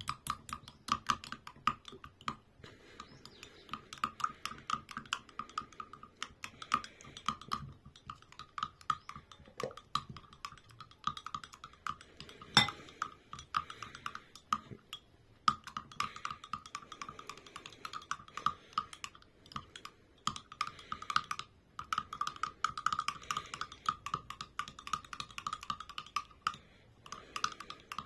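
Rapid, irregular light clicking and tapping, several small knocks a second with brief pauses, and one sharper knock about midway.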